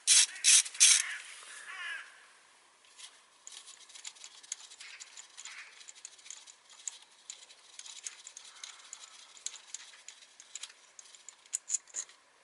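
Socket wrench undoing the 10 mm bolt that holds down an ignition coil on the engine: a few loud sharp clicks in the first second, then a long run of faint quick ticks and light scraping as the bolt is worked loose, with a few sharper clicks near the end.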